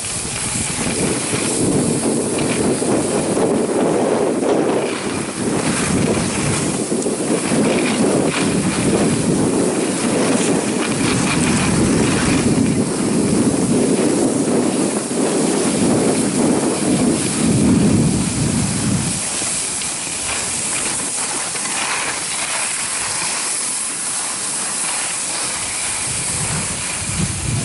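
Skis running and scraping over packed snow at speed, with the rush of wind on the microphone, as one continuous rumbling hiss. It eases off somewhat in the last third.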